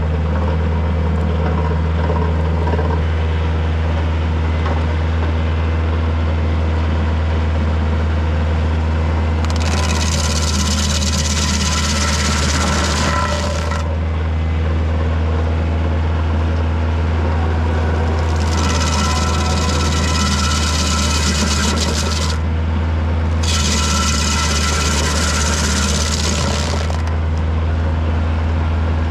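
Kioti DK40se tractor's diesel engine running steadily, driving a Woodland Mills WG24 PTO stump grinder. Three times, for about four seconds each, the spinning cutter wheel bites into a pine stump with a loud hissing, rasping grind of wood being chewed to chips: once about a third of the way in and twice in the second half.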